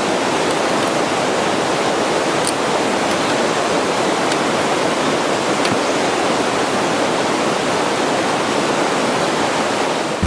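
Steady rushing of a mountain stream, an even unbroken wash of water noise, with a few faint ticks over it.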